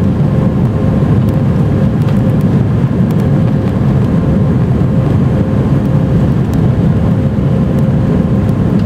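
Cabin noise of an Airbus A319 with IAE V2500 engines in the climb, heard from a window seat by the wing: a steady deep roar of engine and airflow noise with a faint steady hum above it.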